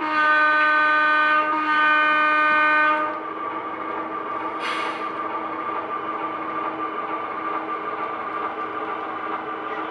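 HO scale model diesel locomotive's DCC sound decoder sounding its horn in two blasts of about a second and a half each, then the diesel engine sound running steadily as the train moves. A short hiss of air comes about five seconds in.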